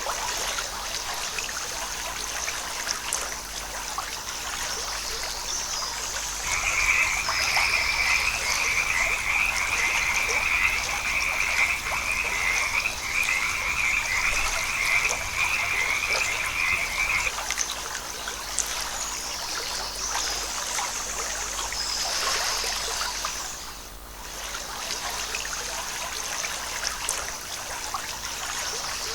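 Frogs calling in a forest: a rapid pulsed trill, repeated in several long runs with short breaks, starts a few seconds in and stops about two-thirds of the way through, over a steady rush of flowing water.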